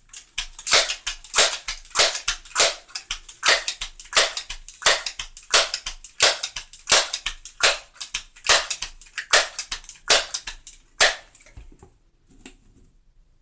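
Crosman 1322 multi-pump pneumatic air pistol being charged. Its forearm pump lever is worked open and shut in a steady, quick rhythm, each stroke a sharp clack, two to three a second, building up a 15-pump charge. The pumping stops near the end.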